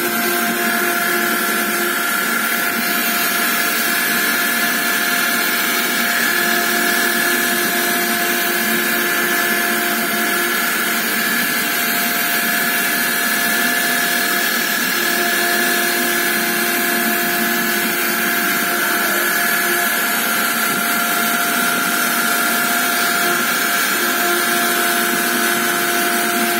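CNC die engraving machine running, its spindle giving a steady high whine over a noisy hiss, with a lower hum that drops out and returns every few seconds.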